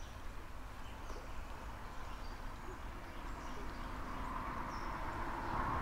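Faint bird chirps over a steady low outdoor rumble, then road traffic noise from a vehicle on the road bridge, swelling steadily over the last couple of seconds. A sharp click right at the end.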